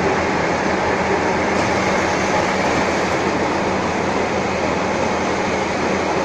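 Metal lathe running steadily while a bronze bushing is lapped onto a steel shaft: a constant mechanical rumble with a low hum underneath.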